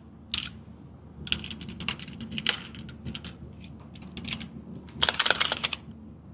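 Sharp metallic clicks and rattles of a semi-automatic pistol being handled to clear a misfire after a light primer strike. They come in several quick clusters, the densest and loudest about five seconds in.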